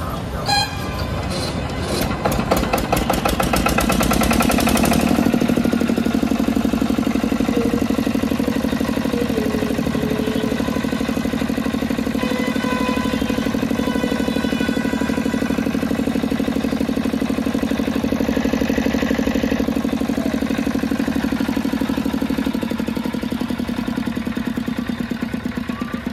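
Bharat 6.5 HP single-cylinder diesel pumpset engine starting: it catches about a second in, picks up speed over the next few seconds, then runs steadily with an even, regular beat.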